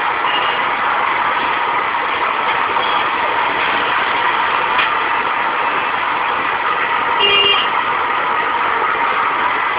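Steady dense street noise with traffic, and one short vehicle horn beep about seven seconds in.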